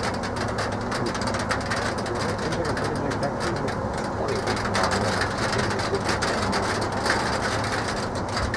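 Steady outdoor background noise with a dense fine crackle, as of weather on the microphone under a stormy sky.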